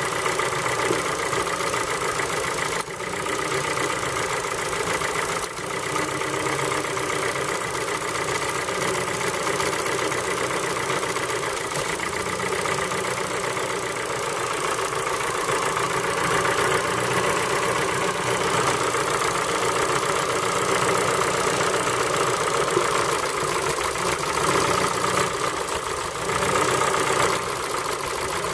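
Ford Focus 3's PNDA 1.6-litre petrol engine idling cold with a knock, which the owner takes for piston pin knock.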